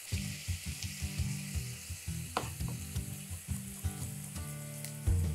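A chef's knife slices garlic cloves on a wooden cutting board in quick, repeated strokes. Beef mince and onion sizzle steadily in the pans behind it.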